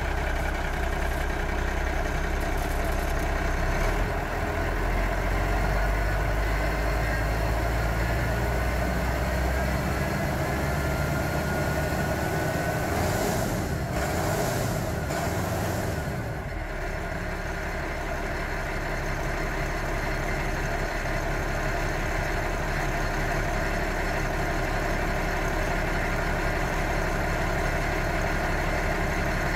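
A 1988 Ford L8000's six-cylinder turbo diesel engine running just after starting, heard close up at the open engine bay. A faint whine rises slowly in pitch around the middle. After about sixteen seconds the engine settles into a steady idle.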